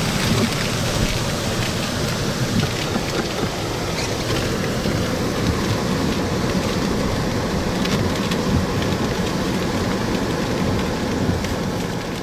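Heavy hurricane rain falling steadily, heard from inside a vehicle.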